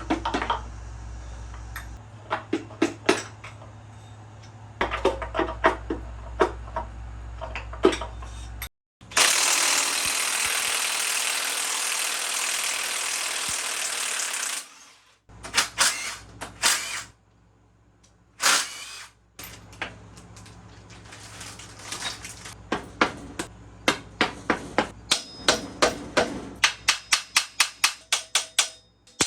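Engine teardown work on metal parts: scattered clicks and knocks of hand tools, then a power tool running steadily for about six seconds, then more knocks and a fast run of even taps near the end.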